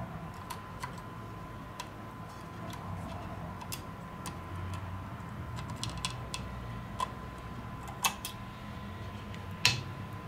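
Small clicks and light ticks of a metal bracket and parts being handled and fitted into an opened iPhone 6's aluminium housing, with two sharper clicks near the end.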